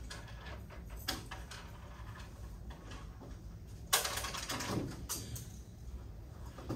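Quiet classroom during seatwork: a steady low hum with small scattered clicks and knocks from desks and handling, and one louder brief rustling scrape about four seconds in.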